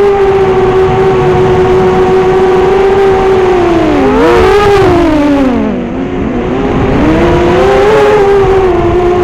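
FPV racing quadcopter's four brushless motors (Racerstar BR2205) and 5-inch props whining steadily. About four seconds in, the pitch splits and drops as the throttle comes off, then climbs back to a steady whine, over a low rush of wind noise.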